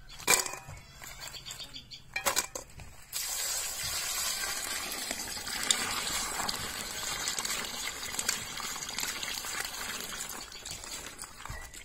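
A few sharp clatters of crab shells against an aluminium pot, then from about three seconds in a steady stream of water pouring into the pot as hands swish the crabs through it, easing off near the end.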